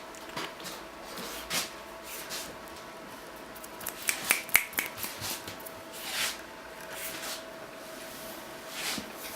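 Bengal kittens scrabbling and playing, making scattered rustles and light clicks, with a quick run of sharp clicks about four seconds in.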